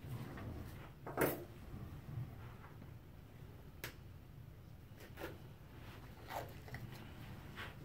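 A few short rustles and light knocks of handling, the loudest about a second in, over a low steady room hum.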